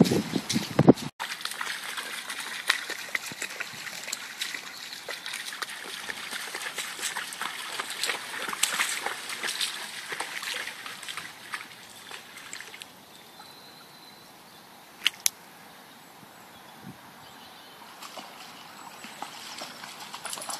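Floodwater trickling and lapping, a busy, irregular patter of small splashes. About two-thirds of the way through it drops to a quieter steady hush, broken once by a sharp double click.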